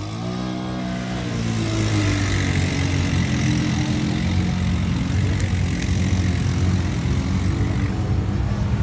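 ATV engine running: the revs drop over the first second, then it runs on at a steady, slightly wavering speed.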